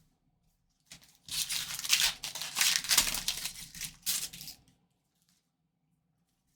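Trading card pack wrapper being torn open and crinkled, a run of tearing and crinkling starting about a second in and lasting nearly four seconds.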